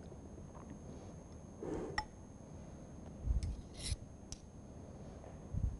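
Quiet room tone with a few faint, scattered clicks and scrapes of metal teaspoons as sticky berry topping is spooned from a glass bowl, plus a couple of soft low thumps.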